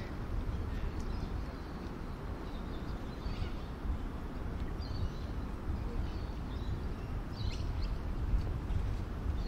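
Outdoor waterside ambience: a steady low rumble with short, faint bird chirps now and then.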